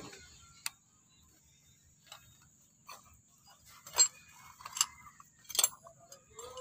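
Sparse, sharp metallic clicks and clinks of hand tools, metal on metal, about five of them roughly a second apart, the loudest about four seconds in, over a faint low rumble.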